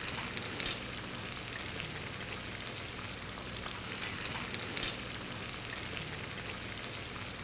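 Batter-coated tilefish rolls deep-frying in hot oil: a steady sizzle with a couple of sharper crackles.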